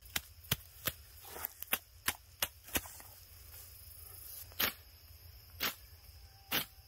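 Sharp woody cracks of sticks and brush being broken up for a campfire: a quick run of cracks for about three seconds, then a few single ones about a second apart.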